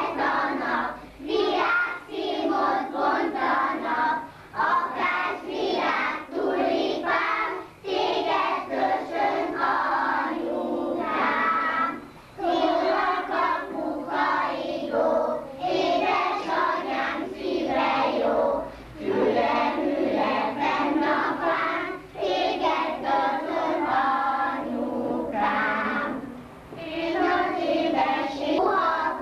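A group of young kindergarten children singing a song together in chorus, with brief pauses between phrases.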